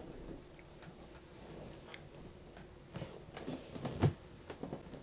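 Makeup items and packaging being handled: scattered light taps and clicks, busier in the second half, with a sharper knock about four seconds in.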